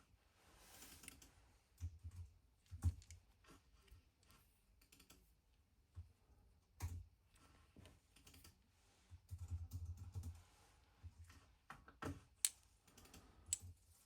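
Scattered light clicks and taps, with a few dull bumps, from a small watchmaker's lathe compound slide being handled and adjusted by hand.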